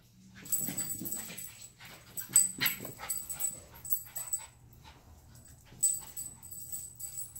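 Two small dogs playing, giving short whimpering yips, with their claws clicking and scrabbling on a tile floor.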